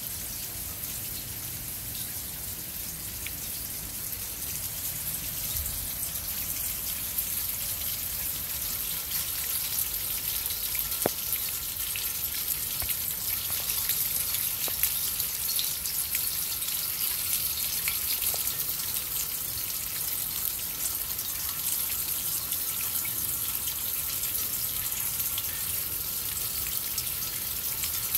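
Steady rain, with water pouring and splashing through the cups of a copper rain chain: a continuous hissing wash with a few faint drip ticks. It grows a little louder about a third of the way in.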